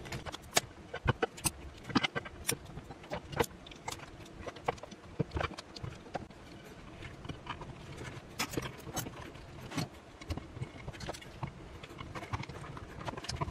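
Irregular clicks, taps and rustling of hands working at a bench: opened hard-disk drives being pressed into a wooden case with double-sided tape, the tape backing peeled and the drive wires handled.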